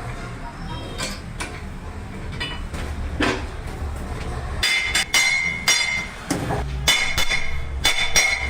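Hammer striking a steel truck wheel rim, a series of blows over a steady low hum. From about halfway on, the blows come roughly twice a second, each leaving a ringing metallic tone.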